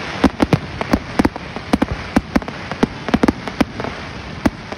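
Aerial fireworks bursting overhead: a rapid, irregular stream of sharp pops and crackles, several a second, over a constant crackling hiss.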